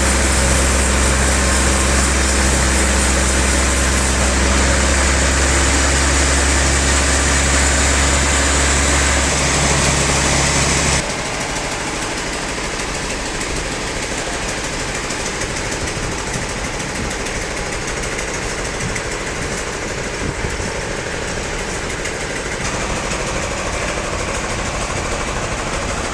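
Sawmill machine's engine running steadily and loudly. About eleven seconds in it cuts off abruptly, giving way to a quieter, rougher rattling machine noise.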